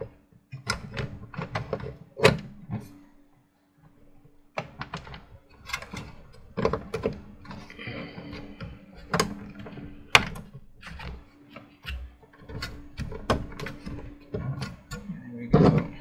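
Scattered clicks, taps and knocks of computer hardware being handled and fitted into a small PC case, over a faint steady hum. There is a brief lull about three seconds in.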